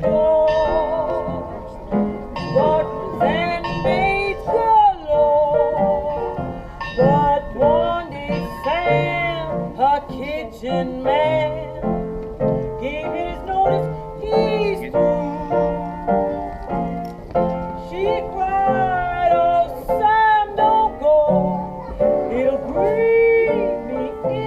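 A woman singing a classic blues number in a full, wavering voice, accompanied by piano.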